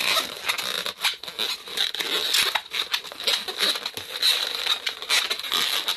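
Inflated latex 260 modelling balloons rubbing and squeaking against each other as they are twisted and wrapped together by hand, in an irregular run of squeaks and crackles.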